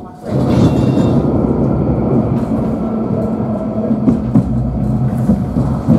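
Nottingham Express Transit tram running along its rails: a loud, steady rumble of wheels and running gear. It sets in abruptly a moment after the start.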